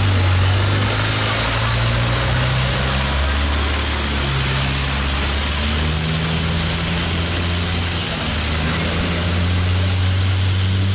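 Long-tail boat's engine running at speed, with water rushing and spraying along the hull. The engine's pitch steps up and down a few times.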